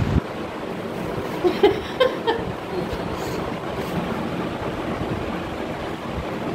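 Steady rushing background noise, with a few brief faint vocal sounds about a second and a half to two and a half seconds in.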